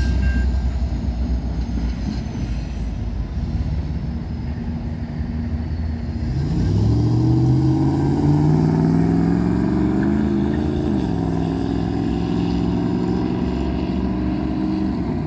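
The tail of a freight train rumbles over the crossing and fades over the first few seconds, and a steady high ringing tone stops about half a second in. From about six seconds in, a road vehicle's engine speeds up across the tracks, its pitch rising, then runs steadily.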